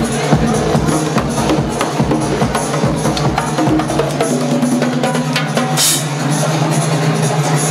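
Live band playing, with a drummer on a drum kit keeping a rhythmic beat. About four seconds in the low drum thumps stop while a held low note carries on.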